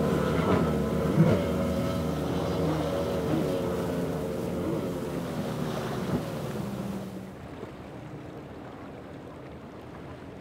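A powerboat's engines running at speed and slowly fading as the boat moves away. The engine sound drops off about seven seconds in, leaving a quieter wash of wind and water.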